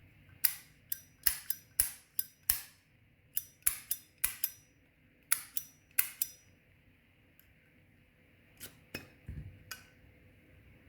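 Zippo Replica 1935 lighter's lid being flipped open and snapped shut, a string of sharp metallic clicks over about six seconds, then a few softer ones near the end. This tests the newly pinned and squeezed hinge, which is now firmer.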